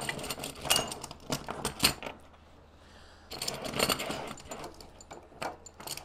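Short section of metal model-tank track links clicking and clinking as it is handled and fitted onto the drive sprocket, with a pause of about a second midway.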